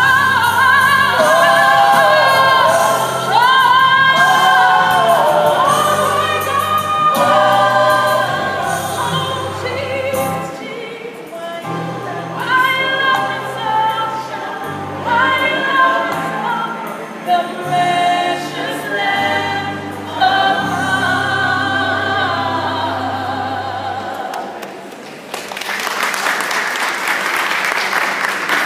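A small mixed a cappella vocal group singing in close harmony, with a bass voice carrying the low line and no instruments. Near the end the song stops and the listeners break into applause.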